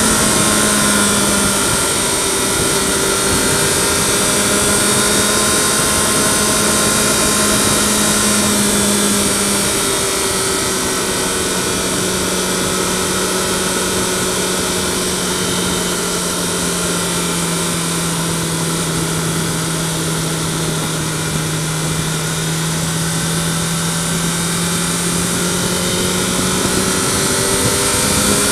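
Yamaha FZ6R inline-four motorcycle engine droning at a steady cruise, with wind and road noise. The engine note drops slightly about ten seconds in and climbs again near the end.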